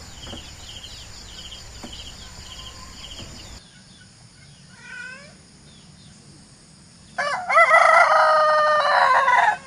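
A rooster crowing once, one long loud call of about two and a half seconds, starting about seven seconds in. Before it, a faint chirping pulses about twice a second over background noise that drops away suddenly, and a short bird chirp follows.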